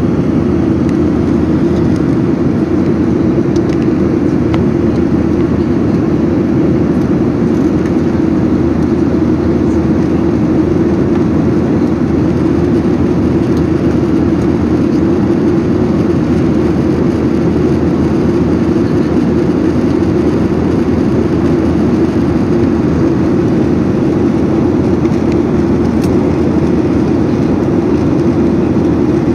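Steady cabin noise of a Boeing 737-800 airliner in climb: jet engines and airflow making an even, low rushing hum that does not change.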